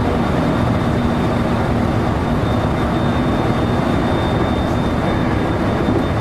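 Steady running noise of a JR electric commuter train heard from inside the train: an even, low rumble with a thin, steady high whine above it.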